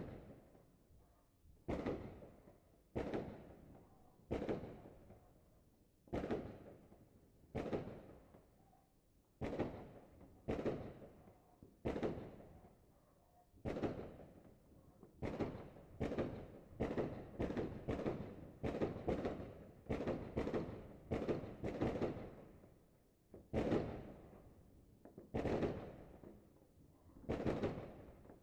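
Fireworks and firecrackers going off in a long series of sharp bangs, each with an echoing tail. The first bang comes suddenly out of quiet, and the bangs follow about once a second, coming faster in the middle.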